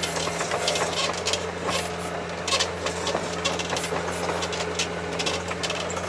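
Engine of an articulated 'Veter' all-terrain vehicle running at a steady pull in fourth gear, low range, heard from inside the cab while it climbs through deep snow. Irregular creaks, crackles and knocks sound over the steady drone.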